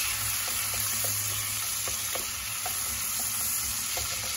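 Chopped garlic and shallots sizzling in hot oil in a pot as a wooden spatula stirs them: a steady hiss with small scattered crackles.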